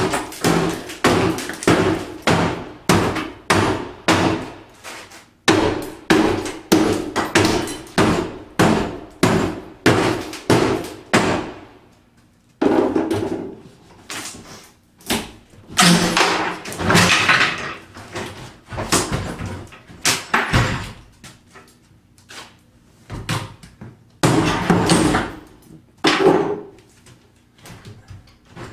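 Repeated hammer blows on a bathroom vanity top being knocked loose, about two a second, in runs with short pauses.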